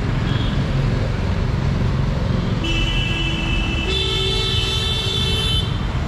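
Busy road traffic rumbling steadily, with two vehicle horns held back to back about halfway through, each for around a second and a half, the second higher-pitched.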